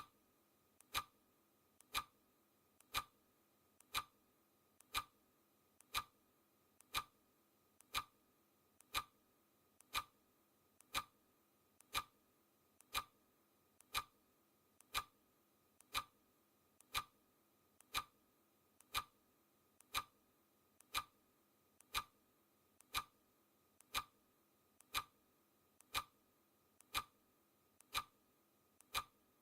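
Clock ticking sound effect: one sharp tick every second, marking the seconds of a countdown.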